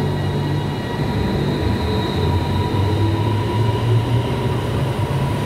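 Airport Rail Link electric train standing at the platform: a steady low hum with a thin, steady high whine over it.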